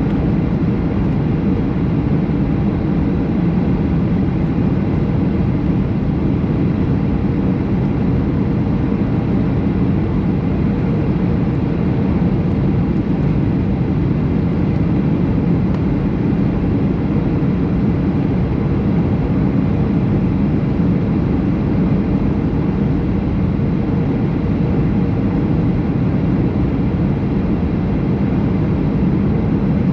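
Steady in-flight cabin noise of a Boeing 737 airliner: a constant low rumble of jet engines and airflow with no change.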